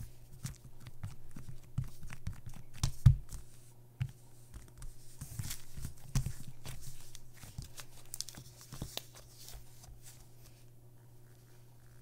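Thick, clay-like slime being kneaded and pressed by hand, giving a run of small crackles, tearing sounds and pops, with the sharpest pops about three and six seconds in. The crackling thins out near the end.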